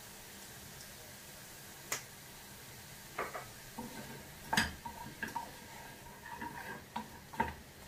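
A utensil knocking and scraping against a pan as butter-sautéed vegetables are stirred and flipped: a few separate clinks, the loudest about halfway through, over a faint steady hiss.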